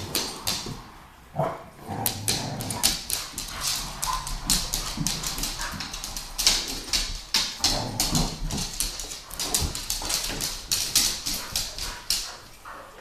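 Two pit bulls, an adult and a puppy, vocalising in rough play, with a busy run of quick clicks and scuffles from paws on the hard floor.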